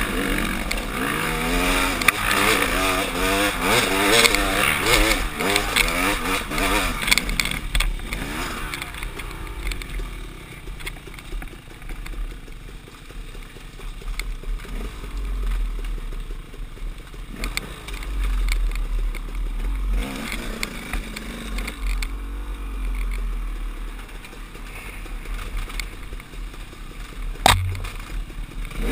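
KTM 300 XC-W two-stroke dirt bike engine heard from the rider's helmet, revving up and down on and off the throttle, loudest and busiest in the first seven seconds and lighter after. There is a low wind rumble on the microphone and one sharp knock near the end.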